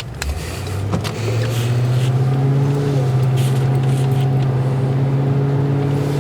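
Car engine and road noise heard from inside the cabin: a steady low drone that swells about a second in, then holds steady.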